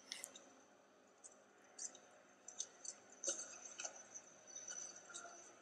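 Quiet room tone with a handful of faint, short clicks and ticks scattered through it.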